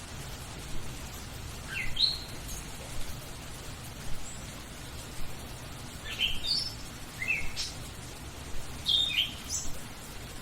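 A songbird chirping in three short spells of quick, rising, high notes over the steady hiss of rain.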